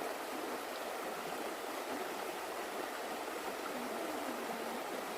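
Mountain stream rushing and splashing steadily over rocks in a small cascade.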